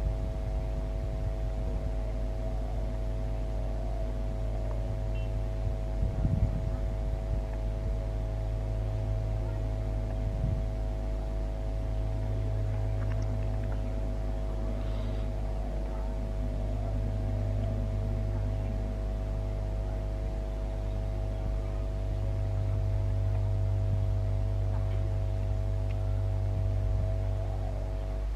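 Diesel locomotive engine running as it approaches: a steady droning hum over a low rumble that swells slightly in the last third. A brief thump about six seconds in.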